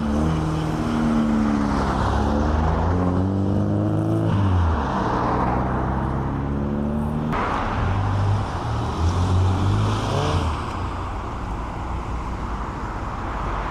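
Mk1 Ford Escort pulling out onto the road and accelerating away through the gears, its engine note climbing and dropping back at each shift. Another car is heard accelerating near the end.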